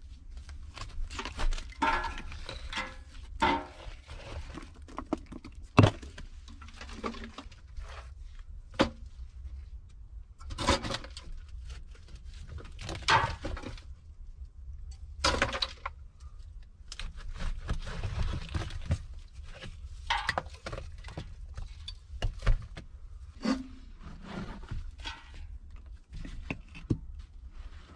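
Bricks and dried clay from a brick stove being pulled loose and handled: irregular thunks, scrapes and crumbling, with a sharp knock about six seconds in.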